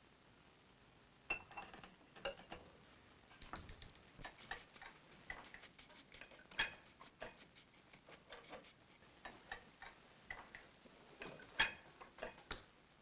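Sparse, irregular light clicks and taps, a few stronger ones standing out about a second in, midway and near the end.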